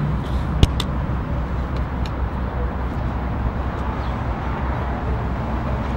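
Steady traffic rumble with outdoor hum, and two sharp clicks a little under a second in.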